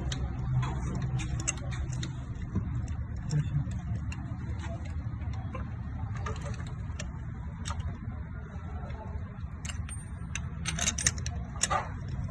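Scattered sharp clicks and light metallic rattles over a steady low hum, with a quick cluster of clicks near the end.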